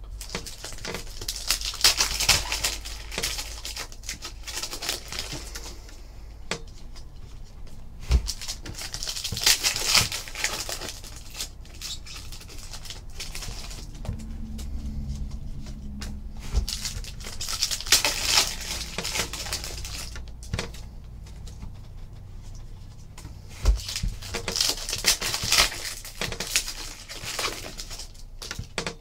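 Foil trading-card packs being torn open and their wrappers crinkling, along with cards being slid and flicked through in the hands. The rustling comes in several bursts a few seconds apart, with quieter handling between.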